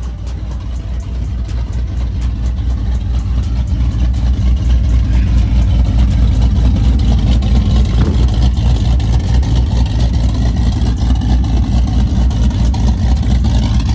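Vehicle engine running with a loud, deep exhaust rumble through an opened exhaust cutout, growing louder over the first six seconds and then holding steady.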